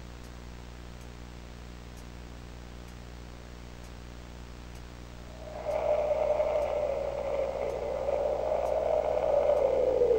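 Faint clock ticking, about once a second, over a low hum. About halfway through, a louder long droning tone comes in, holds its pitch, then slides down near the end.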